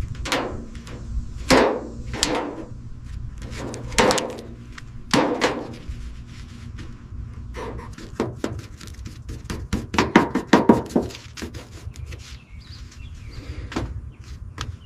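Irregular knocks and impacts, several with a short ring after them, coming in clusters: about a second and a half in, around four and five seconds in, and a denser run between about eight and eleven seconds.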